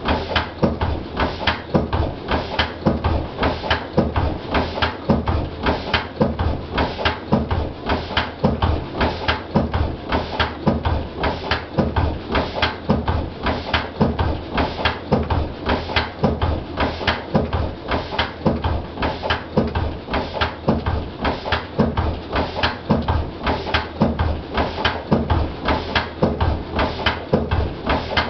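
Lister CS single-cylinder stationary diesel engine running steadily at its governed speed, an even, rhythmic beat of firing strokes and mechanical knocking.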